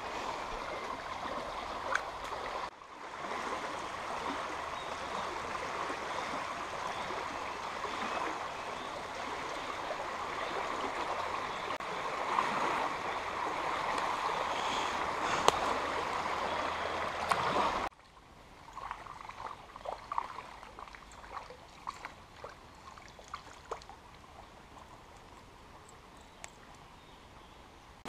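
Shallow river water running over stones, a steady rush. About 18 seconds in it cuts off abruptly to much quieter running water with scattered light clicks.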